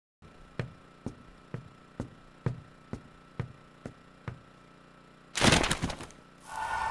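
A series of sharp, evenly spaced knocks, about two a second. About five and a half seconds in comes a loud clattering crash, and near the end a whoosh with a ringing tone swells up.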